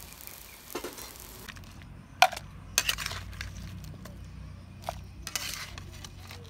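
A metal spatula clinks and scrapes against a wok and a ceramic bowl as stir-fried crabs in their shells are scooped out, with the shells clattering. There are several sharp clinks, the loudest about two seconds in. A faint sizzling hiss from the wok fades out in the first second and a half.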